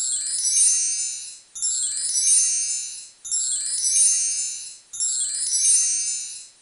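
A bright, high chime-like jingle, one short shimmering phrase played four times in a row, each about a second and a half long.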